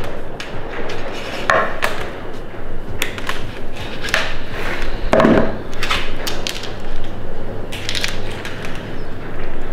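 Side cutters snipping thin 0.75 mm electrical wire, with the wire and tools handled on a workbench: irregular clicks and rustles, with a louder knock about five seconds in.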